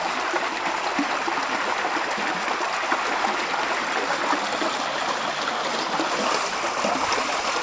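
Fast-flowing stream rushing steadily, with splashing where the blades of a homemade wooden paddle wheel dip into the current.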